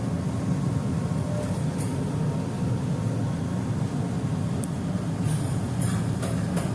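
Steady low rumble of an LA Metro transit vehicle running, with a few short clicks near the end.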